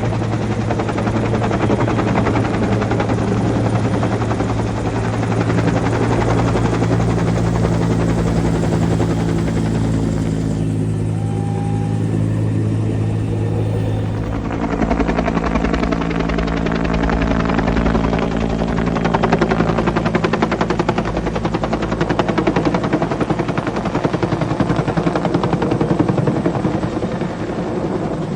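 Helicopter running with a steady, loud drone of rotor and engine; the pitch of the drone changes about fourteen seconds in.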